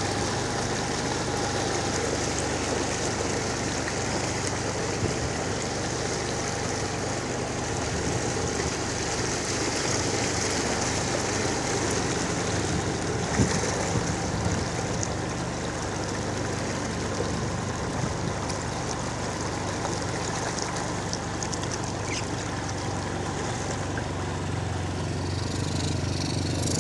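Small motorcycle engine running at a steady speed while riding through floodwater, with water swishing and splashing around the wheels.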